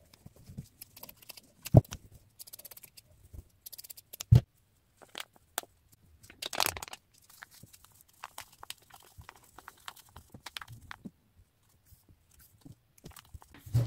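Handling of fabric and craft materials: rustling and crinkling with small clicks, and two sharp low knocks about two and four seconds in.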